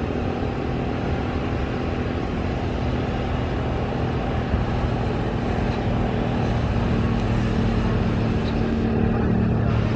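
Steady engine noise with a low hum, growing slowly louder.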